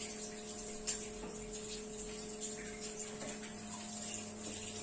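Gas oven running while it bakes: a steady low hum with a few faint, irregular ticks.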